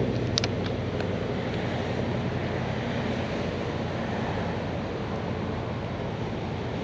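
Steady rush of highway traffic with wind buffeting the microphone, and a brief high tick about half a second in.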